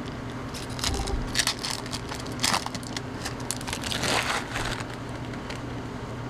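Baseball trading cards being flipped through by hand: short rustles and slides of card stock against card stock, with louder ones about two and a half and four seconds in.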